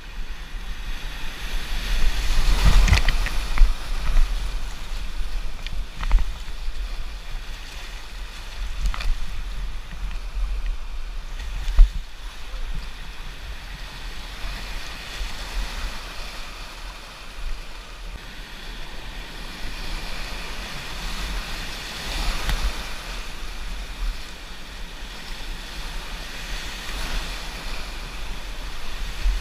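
Rushing river whitewater close to the microphone, with paddle splashes and wind buffeting the microphone. The water swells loudest about two to four seconds in as the kayak goes over a small fall, and there is a sharp knock near the middle.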